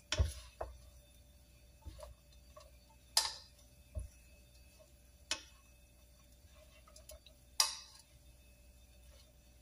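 Metal tongs and a silicone spatula tossing rice vermicelli in a wok: scattered clicks, light knocks and short scrapes against the pan, with two louder scrapes a few seconds apart.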